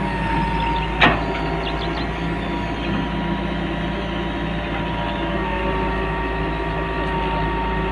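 Caterpillar 312B hydraulic excavator's diesel engine running steadily with a steady high whine as the boom lowers the bucket to the ground. A single sharp clank about a second in.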